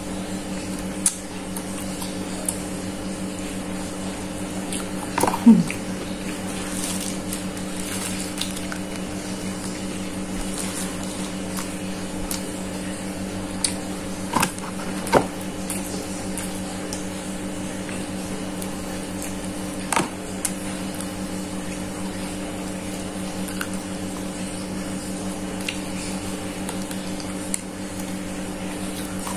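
A steady mechanical hum runs throughout. Over it come a few scattered short clicks and mouth sounds from eating fried chicken by hand: chewing, lip smacks and fingers on the bone. The loudest of these is a brief sound about five seconds in.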